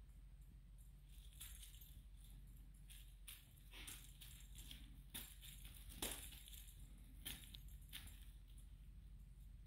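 Faint rustling and crinkling of a feather wand cat toy and kittens' paws scuffling on a rug as the kittens pounce at it. About half a dozen short rustles, the loudest about six seconds in.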